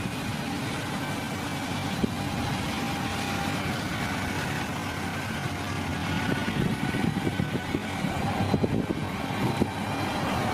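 A heavy construction vehicle's engine running steadily, with a scatter of short crackles and knocks growing in the second half.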